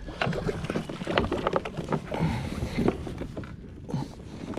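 Irregular knocks, clicks and rattles of gear being handled on a plastic fishing kayak, with water moving against the hull.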